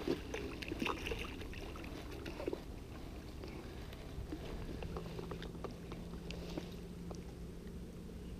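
Handling noise as a small striped bass is landed by hand on rocks: scattered small clicks and rustles over a low background rumble, a little busier in the first couple of seconds. A faint steady low hum comes in about halfway through.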